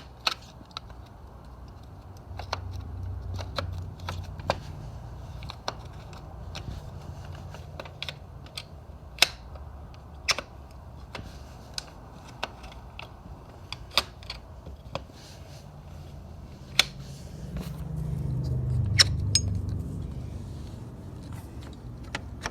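Handling noise: scattered sharp clicks and taps, about one a second, over a low rumble that swells twice, from a phone being held and moved with its camera covered.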